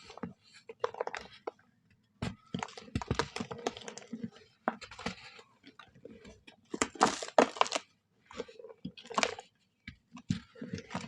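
Brown soft sand being crushed and crumbled, a run of irregular crunches and crackles with short pauses between them; the loudest come about seven seconds in.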